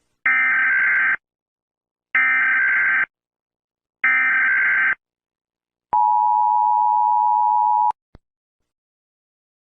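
Emergency Alert System opening tones: three screechy digital bursts of SAME header data, each about a second long and about a second apart, then the two-tone EAS attention signal held steady for about two seconds and cut off by a short click.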